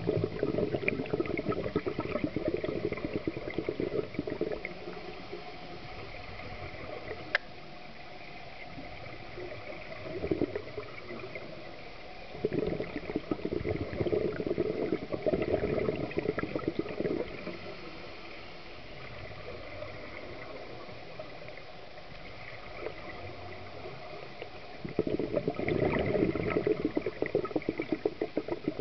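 Scuba diver's regulator heard underwater: three long bubbling exhalations of several seconds each, with quieter spells between breaths. One sharp click about seven seconds in.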